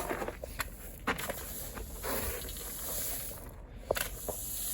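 Broom sweeping over landscape rock, a scratchy rustle with a few sharp clicks of stones, as the rocks are brushed flat.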